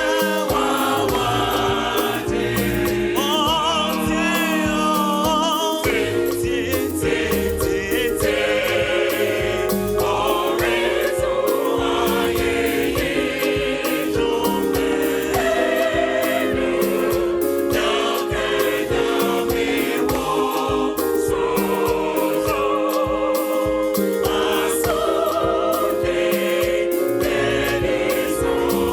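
Gospel choir singing with instrumental backing and a steady beat.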